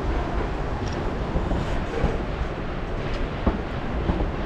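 Durango & Silverton narrow-gauge train rolling along the track: a steady rumble and rattle with a few sharp clacks, one louder clack about three and a half seconds in.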